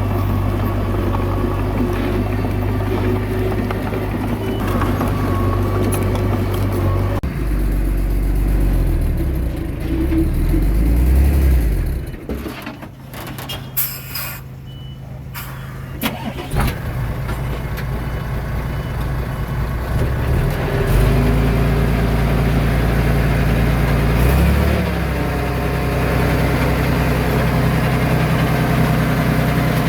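Heavy-machinery diesel engine running, its pitch and load shifting several times, with a quieter dip about halfway through before it picks up again.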